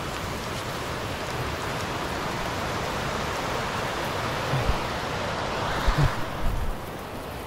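Creek water rushing steadily over rocks, with a few low thumps in the second half.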